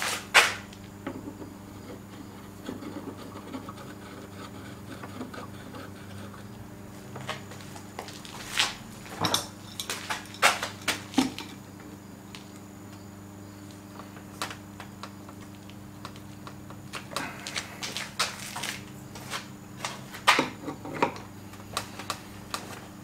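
Scattered metallic clicks and clinks of hand tools and parts being handled on a power steering rack, coming in clusters, over a steady low hum.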